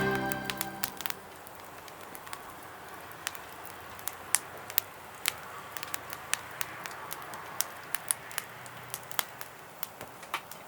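Wood pellets burning in a small Flame Stove, crackling with sharp, irregular pops over a faint steady hiss.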